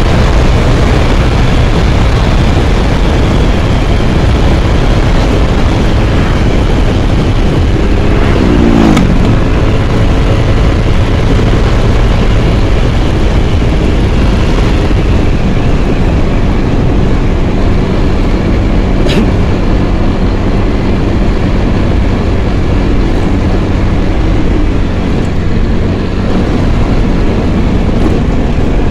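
Steady road and wind noise from a Yamaha scooter being ridden at speed, with its engine running underneath. A falling engine note is heard about eight seconds in.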